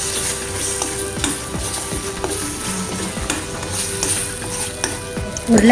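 Eggs sizzling in hot oil in a stainless steel kadai while a spatula stirs and scrambles them, scraping against the metal pan again and again.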